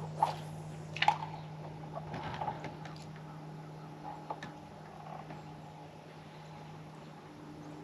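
A steady low hum with a few sharp knocks and clicks of gear being handled on a fishing boat; the loudest knocks come about a quarter second and about a second in, and smaller ones follow around two and four seconds.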